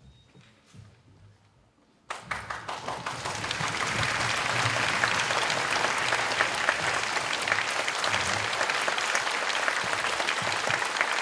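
Concert audience applause: after a hush of about two seconds, clapping breaks out suddenly and swells within a second or two into steady, full applause.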